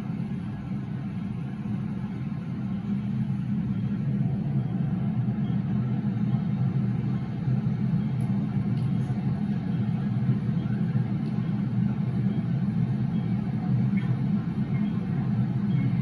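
Steady low rumble of an MTR Kwun Tong Line train at the station platform, growing a little louder over the first few seconds.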